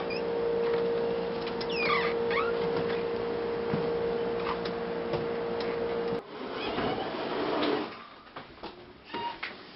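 A steady hum with a few faint chirps, which stops abruptly about six seconds in, followed by quieter room sound with a few soft knocks and clicks, like a door being handled.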